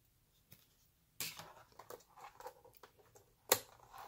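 Hands handling a laptop's plastic underside and open memory bay: faint scrapes and small clicks, a rustle a little over a second in, and one sharp click near the end as the laptop SO-DIMM's retaining clips are spread.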